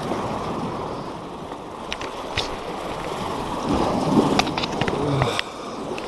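Sea surf washing against breakwater rocks: a steady rush that swells about four seconds in, with a few sharp clicks and knocks over it.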